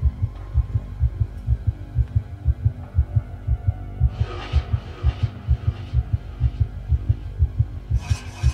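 Heartbeat sound effect: steady pairs of low thumps over a low hum, with a hissing swell about four seconds in and a run of quick clicks near the end.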